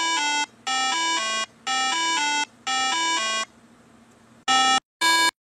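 Synthesized electronic beep sound effect in a retro video-game style: four repeated chimes of two or three quick notes, about one a second, then after a brief gap a run of short single beeps, about two a second.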